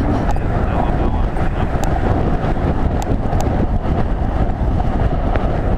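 Wind buffeting a helmet-mounted GoPro microphone on a galloping horse: a loud, steady rush with a few sharp clicks scattered through it.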